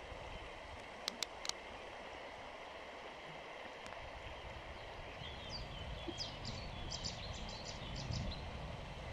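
Shallow river water running over stones, a steady rushing. Three sharp clicks come about a second in, and a run of quick high chirps follows in the second half.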